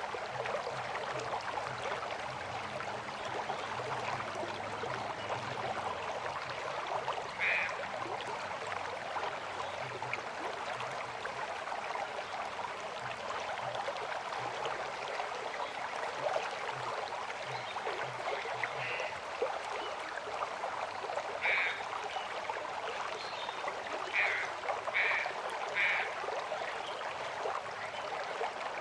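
Steady rush of river water flowing. A few short high chirps stand out above it, most of them clustered a little over two-thirds of the way through.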